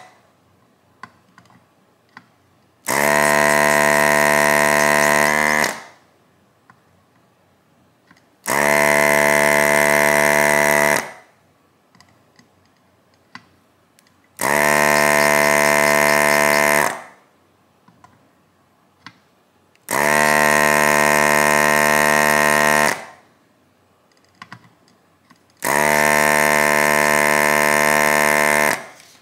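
Hakko desoldering gun's vacuum pump buzzing in five short runs of about three seconds each, switched on and off with the trigger as it sucks molten solder off the relay pins one at a time. Faint clicks come in the gaps between runs.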